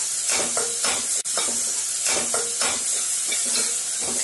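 Sliced onion and tomato sizzling in oil in a steel kadai while a spatula stirs them, scraping against the pan in repeated strokes over a steady frying hiss.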